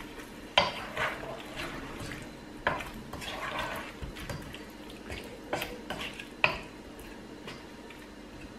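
A spatula stirring pieces of chicken curry in thick, wet gravy in a nonstick pot, with four sharp knocks of the spatula against the pot.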